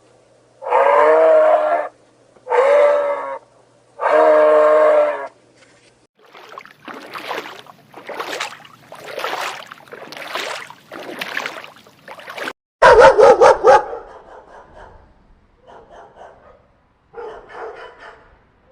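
A series of animal calls: three drawn-out pitched cries of about a second each, then a run of rougher calls spaced under a second apart, then a loud rapid stuttering burst and a few fainter calls near the end.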